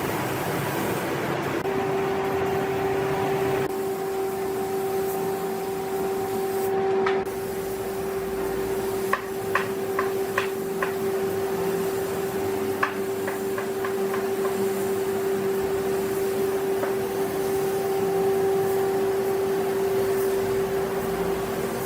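A woodworking machine running with a steady, even-pitched whine that sets in about two seconds in, over a constant mechanical noise, with a quick run of light clicks and taps near the middle.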